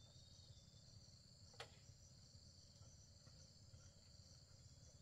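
Faint, steady chorus of insects trilling high and evenly, with a single sharp click about one and a half seconds in.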